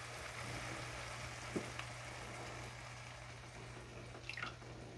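Faint sizzling of onions, tomatoes and red pepper in a hot skillet as heavy cream is poured in, over a low steady hum, with a small tick about a second and a half in.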